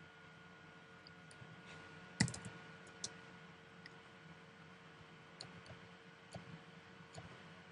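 Faint clicks of a computer keyboard and mouse: a quick run of keystrokes about two seconds in, the loudest, then scattered single clicks. A faint steady hum runs underneath.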